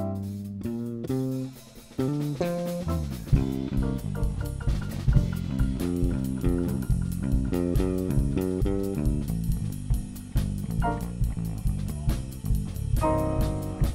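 Jazz band playing: an electric bass solos alone at first, then about three seconds in the drum kit and a Yamaha CP stage piano come back in and the full rhythm section plays together.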